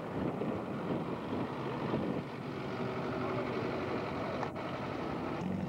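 Motor vehicle engine running steadily, heard as a continuous hum, with a brief click about four and a half seconds in.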